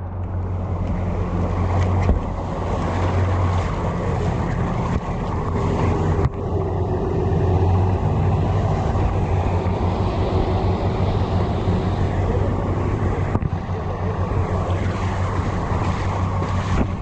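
Tow vehicle's engine running steadily with a low hum under the load of dragging a flooded car out through standing water, mixed with a steady wash of water and wind noise.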